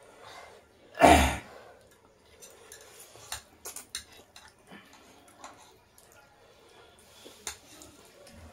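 Two people eating noodles: slurping and chewing, with forks clicking and scraping on ceramic plates. A short, loud rush of noise comes about a second in, the loudest thing here.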